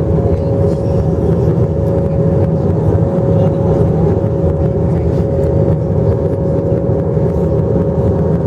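Airliner cabin noise in flight: the steady rumble of jet engines and airflow, with a constant hum-like tone running through it.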